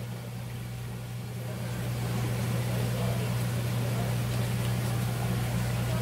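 A steady low machine hum, growing slightly louder about two seconds in.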